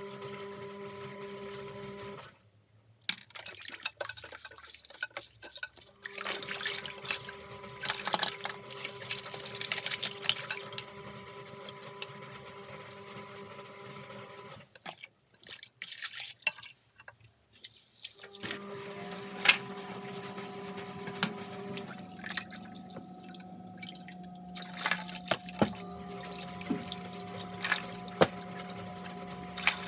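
Water running from a tap with a steady humming tone, cut off twice for a few seconds, as the vacuum's dust canister and filters are rinsed. Scattered light knocks through it.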